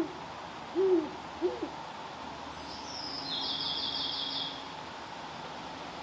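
Great horned owl hooting: two deep hoots about a second in, closing a hoot series. A couple of seconds later comes a brief, much higher rapid trill.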